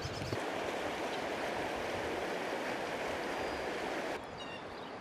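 Floodwater rushing steadily as it pours over the edge of a paved road onto grass. The rushing cuts off about four seconds in, leaving a quieter outdoor background with a few short high chirps.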